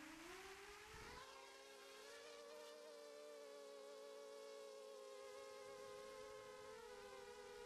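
Faint whine of a ZMR 250 quadcopter's four Cobra 2204 1960 kV brushless motors and Gemfan 5x3 props, heard from the onboard camera. The whine rises in pitch as the motors spool up for take-off, then holds steady in flight, with a brief dip in pitch about seven seconds in.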